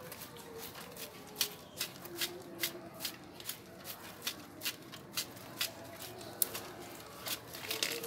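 Hand spray bottle being pumped over and over, squirting short bursts of water mist onto a lovebird in its wire cage, about two or three squirts a second.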